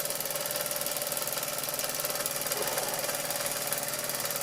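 Doll 320/3 toy upright steam engine running steadily, turned low on a gas burner: a rapid, even beat of exhaust chuffs over a steady hiss, with a faint steady tone running through it.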